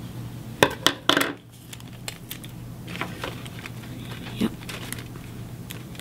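Hands handling cardstock, paper clips and tape: a few sharp clicks and a short crinkle about a second in, then light rustling and small clicks.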